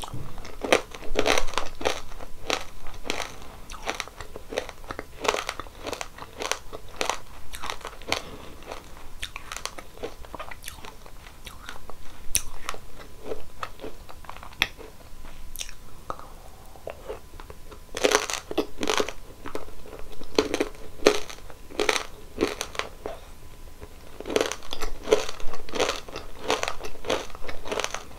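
Close-miked biting and chewing of crunchy ice cream treats: sharp, crisp crunches in quick clusters with quieter chewing between. A lull comes about halfway through, and the crunching picks up again for the last ten seconds.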